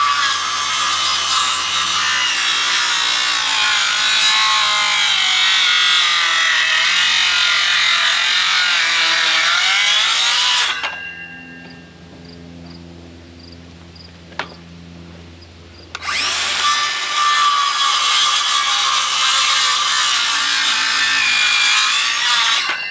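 Cordless circular saw cutting through the top of a wooden post, running under load for about eleven seconds and then stopping. After a pause of about five seconds with a single click, it cuts again until just before the end.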